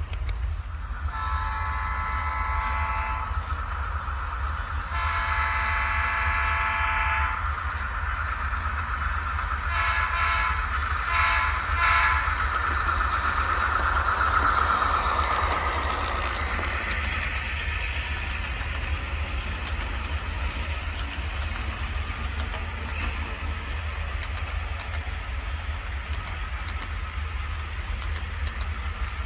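Model diesel locomotive's sound-decoder horn sounding two long blasts and then three short ones over a steady low hum. A rolling rush of the train running by swells about halfway through and then fades.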